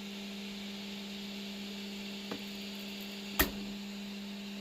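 Ender 3 S1 Pro 3D printer running near the end of a print: a steady hum with a soft hiss, broken by a light click a little past two seconds in and a sharper knock about three and a half seconds in.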